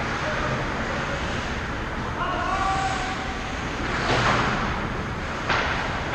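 Ice hockey skate blades scraping and carving the ice, with a loud scrape as skaters stop about four seconds in. A player shouts about two seconds in, and a single sharp knock of stick or puck comes about five and a half seconds in.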